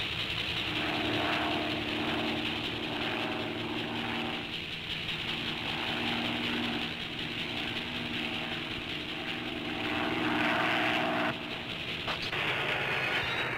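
Steady mechanical drone and whir of a cartoon machine, the villain's ray apparatus run from a lever control panel, with pitched hums that swell and fade. The sound changes abruptly about eleven seconds in.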